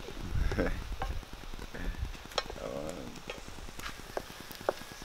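Scrambled eggs sizzling in a black iron skillet as they are stirred, with a flat utensil scraping and clicking against the pan several times from about the middle on.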